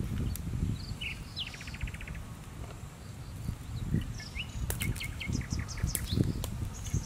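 Small birds chirping, with a rapid trill about a second and a half in and a run of short chirps around five seconds in, over low thumps and rustling.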